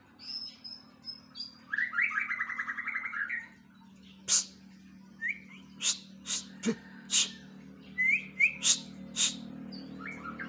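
White-rumped shama singing after its moult: short high whistles and a rapid warbled phrase, then a series of sharp clicking notes mixed with short upswept whistles. A faint steady low hum runs underneath.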